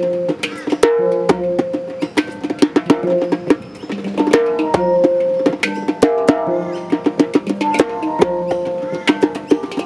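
A djembe and a handpan played by hand together: quick, sharp djembe strikes over the handpan's ringing, sustained metallic notes.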